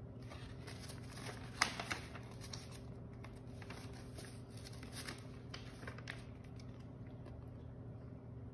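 Pages of a handmade paper card booklet rustling and crackling as they are folded back and flipped through, with the sharpest crackles about two seconds in. A faint steady hum sits underneath.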